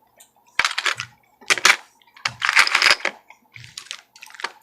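Small hard objects clattering and rustling as things are rummaged through and handled, in four or five short bursts.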